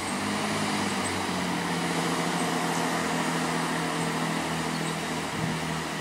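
Class 166 Turbo diesel multiple unit's underfloor diesel engines running under power with a steady droning note.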